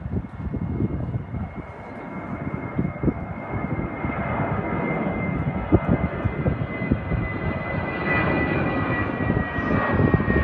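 Airplane passing overhead: its engine noise grows steadily louder, with a high whine that slowly falls in pitch.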